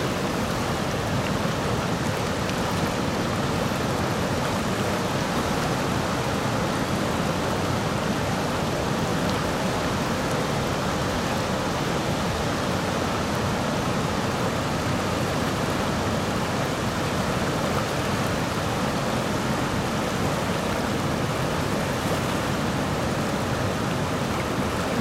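Rushing river water: a dam spillway pouring over a weir and fast, shallow rapids churning around waders' legs, an even, unbroken rush.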